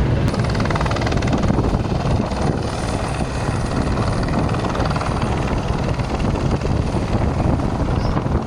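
Helicopter in flight, its rotor blades beating fast and evenly over a steady engine noise.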